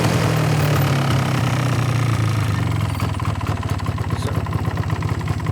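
Small vehicle engine running steadily at low speed. About three seconds in its note changes to a rapid, even pulsing.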